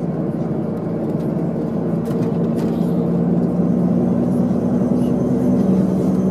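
Diesel engine of a VDL Bova coach running under way, heard from inside the passenger cabin: a steady engine hum over road noise, growing louder from about halfway through.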